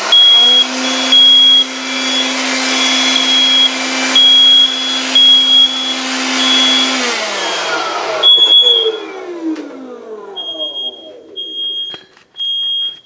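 An ionization smoke alarm, set off by canned test smoke, sounds its high-pitched alarm in repeated beeps and stops near the end. Under it an electric blower spins up at the start, runs steadily for about seven seconds, then winds down with a falling pitch.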